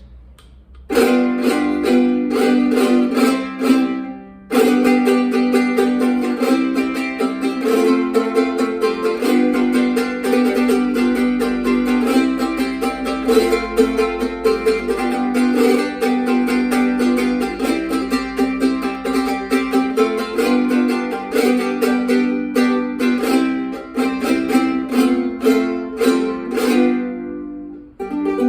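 A new jarana segunda of four courses, tuned G-C-E-A, being strummed in fast rhythmic strokes. It starts about a second in, pauses briefly around four seconds, then plays on until just before the end.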